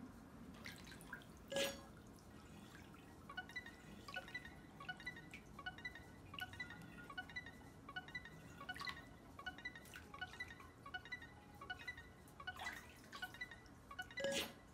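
Soft, faint electronic chime tones repeating quickly for several seconds: a video call ringing while it waits to be answered.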